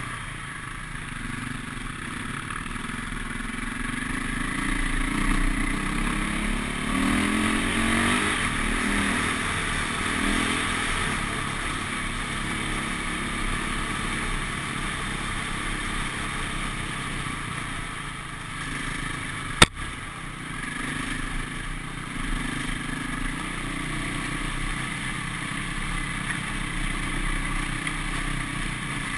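Off-road motorcycle engine running as it is ridden along a trail, the revs rising and falling. A single sharp knock about twenty seconds in.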